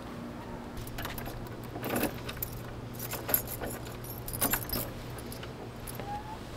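A bunch of keys jangling and clicking in several bursts, about one to five seconds in, as a wooden fence gate is unlocked, over a steady low hum.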